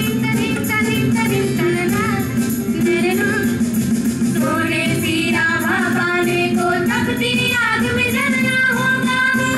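Live band music in Hindi song style: female voices singing together over sitar, acoustic guitar, keyboard and hand drums.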